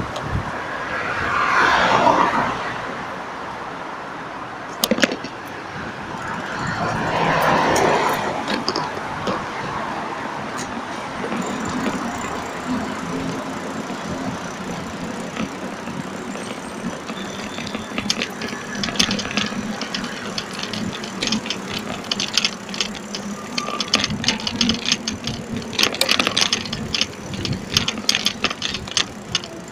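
Two cars pass in the first third, each swelling and fading. After that a bicycle rolls over sidewalk paving, rattling with rapid ticking clicks that grow denser in the last ten seconds.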